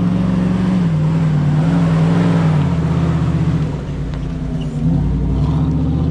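Jeep's engine revving as it drives an off-road dirt track. The revs hold, then fall off about halfway through and pick up again about five seconds in.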